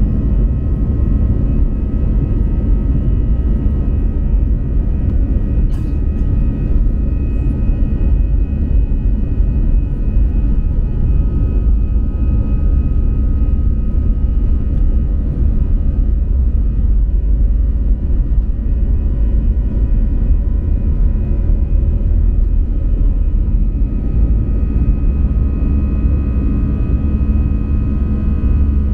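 Airbus A320 jet engines at takeoff thrust heard from inside the cabin over the wing: a loud, steady low rumble with a steady high whine on top, through the takeoff roll and initial climb.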